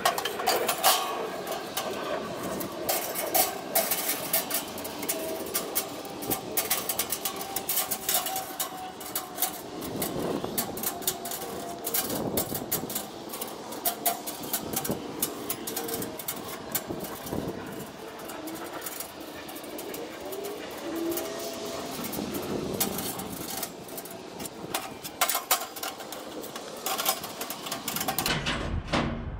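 Metal grill parts being handled and fitted: irregular clanks, knocks and rattles, with a few short squeaks about two-thirds of the way through.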